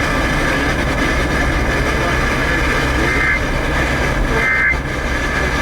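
A car radio on a weak FM station, giving a steady loud hiss of static over road rumble. About three seconds in, and again a little over a second later, come two short warbling bursts of Emergency Alert System data tones.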